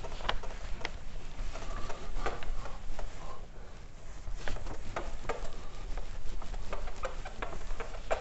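Whiteboard duster wiping a whiteboard: an irregular run of short scuffs and rubbing strokes.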